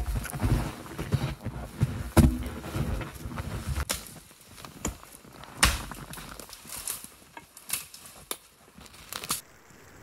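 Footsteps crunching in snow, with wind buffeting the microphone, while a log is carried on the shoulder. From about four seconds in come about seven sharp, separate knocks and cracks of dry wood as a tree is worked for firewood.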